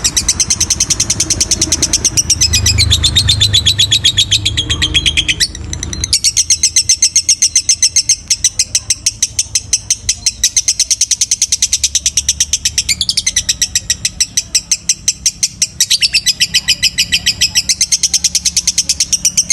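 Lovebird singing a long, unbroken run of rapid high chirps, the long-duration 'ngekek' song that hobbyists prize, with one short break about five and a half seconds in.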